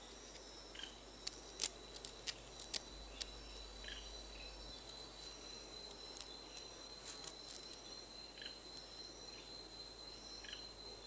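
Tropical rainforest ambience: a steady high-pitched insect drone, with short falling chirps here and there. A quick run of about eight sharp clicks comes between one and three seconds in.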